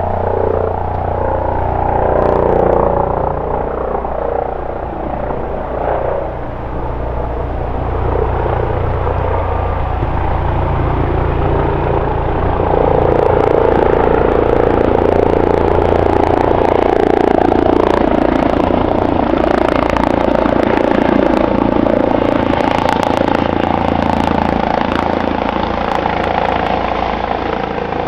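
Airbus Helicopters H135 (EC135) twin-turbine air-ambulance helicopter approaching to land, a steady rotor and turbine drone that grows louder about halfway through as it comes overhead.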